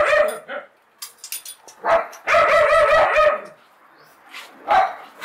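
A dog barking in loud bursts: one at the very start, a longer run around two to three seconds in, and a single short bark near the end.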